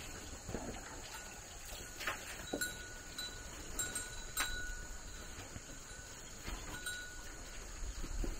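Farm animals calling in short, scattered cries, with a few brief steady high tones among them.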